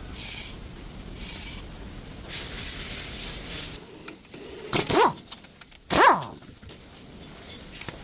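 Front brakes of a Mazda making noise: two short, very high squeals near the start, then two louder squeaks that fall in pitch, about a second apart, near the middle.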